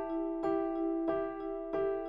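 Background music: a soft piano playing a slow, even figure, with a new note struck about every two-thirds of a second over held tones.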